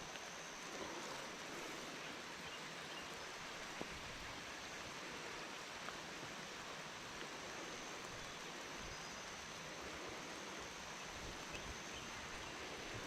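Light rain falling steadily, a soft even hiss with a few faint ticks.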